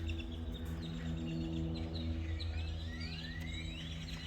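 Birds calling in a series of short rising chirps over a steady low hum.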